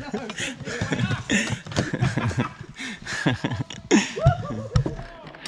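Men's voices chuckling and laughing, with two sharp knocks a little past four seconds in.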